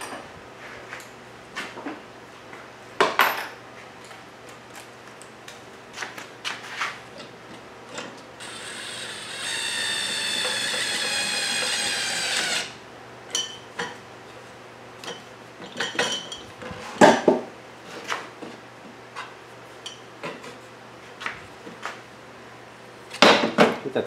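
Wooden whirligig parts and small metal hardware being handled, with scattered clicks, clinks and knocks. About eight seconds in, a cordless screwdriver runs for about four seconds with a steady whine at a propeller hub screw, then stops. The knocks carry on, the loudest a sharp one past the middle.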